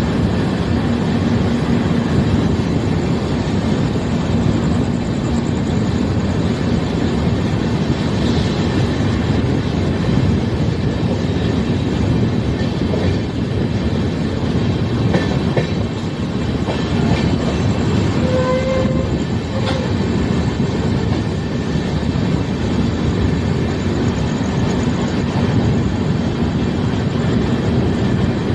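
Express passenger train running on the rails, a steady loud rumble of wheels on track. About two-thirds of the way through, a short pitched tone sounds briefly over it.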